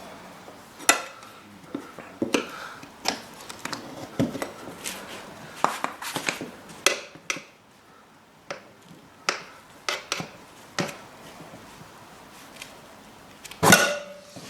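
Irregular metallic clicks and clinks of tyre tools working against a motorbike wheel rim during a tyre change, with a louder knock near the end.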